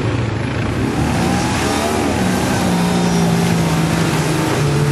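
Pickup truck's engine revving under load as it pushes through deep mud. The revs climb about a second in, hold high and steady for a couple of seconds, then dip briefly near the end.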